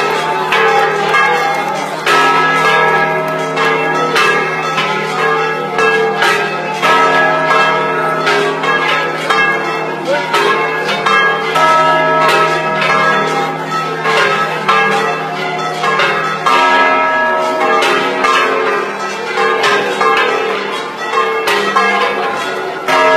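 Church bells ringing continuously, many strokes overlapping, the set of pitches shifting every few seconds.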